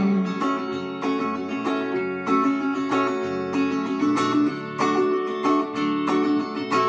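Instrumental break of a Russian rock song: guitar strummed and picked, no singing.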